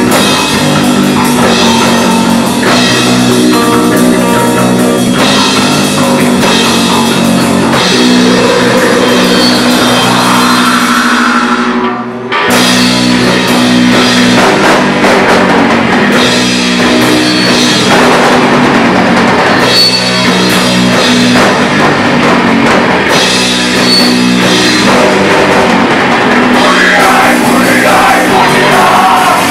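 Punk band playing live and loud: distorted electric guitar, bass and a fast-hit drum kit. The music breaks off briefly about twelve seconds in, then the band starts up again.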